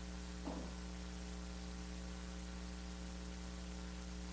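Steady electrical mains hum with a layer of hiss, and one faint short sound about half a second in.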